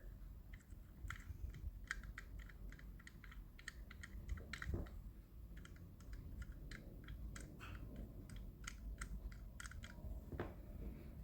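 Faint, irregular light clicks and taps, a few a second, from a chrome paint pen and a small model fire truck being handled while the chrome is touched up, with a slightly heavier knock about halfway through and another near the end.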